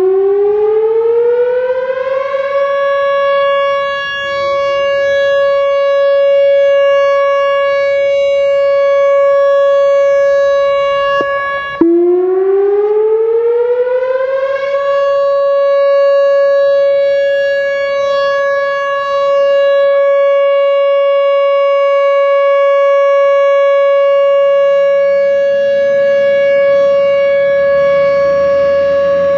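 Whelen WPS-4004 electronic outdoor warning siren sounding a steady alert tone: it winds up in pitch over two or three seconds, then holds one loud, even note. About twelve seconds in it cuts out for a moment, winds up again the same way and holds the steady note once more.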